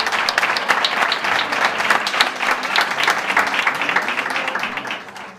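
Audience applauding with dense clapping, which dies away near the end.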